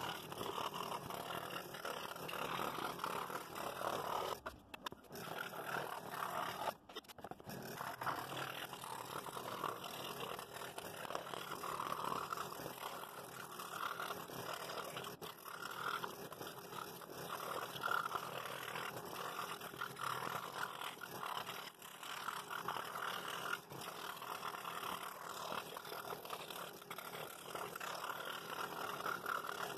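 Scroll saw running and cutting a pattern out of quarter-inch wood, a steady sawing noise that drops out briefly twice, about five and seven seconds in.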